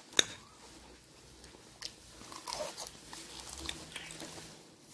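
A fork clicks sharply once against the plate as it spears salad, then raw salad greens are chewed with quiet, irregular crunching.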